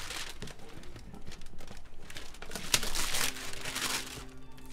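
Cardboard box being torn open by hand, with crinkling packing, in irregular bursts of rustling; the loudest comes nearly three seconds in.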